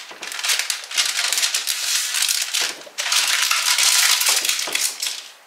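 Parchment paper crinkling as gloved hands press and fold it into a baking dish, in two long bouts with a short break about halfway.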